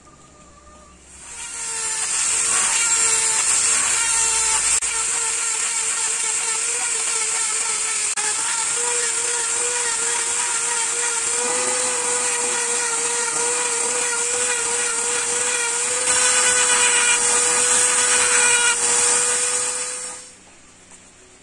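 Hand-held Dremel engraver buzzing steadily as its tip stipples dots into the end of an ironwood knife handle. It starts about a second in and stops shortly before the end. The pitch steps up slightly twice, and it is louder for a few seconds near the end.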